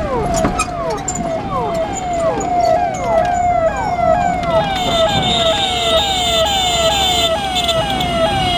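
Ambulance siren sounding a quick falling wail, repeating about twice a second. About halfway through, a steady high-pitched squeal joins it.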